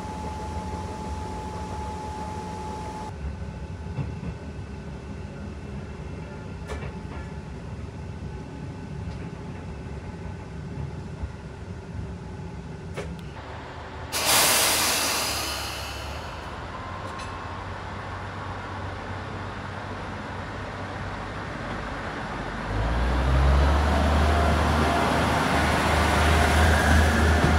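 Diesel railcar's engine running low and steady, with a sharp burst of air hiss about halfway through that fades over a couple of seconds. Near the end the engine note grows louder and rises as the railcar gets under way.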